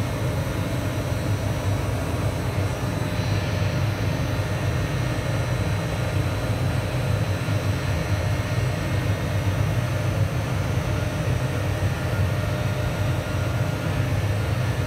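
Steady, even roar of automatic car wash equipment with a low rumble underneath, unchanging throughout.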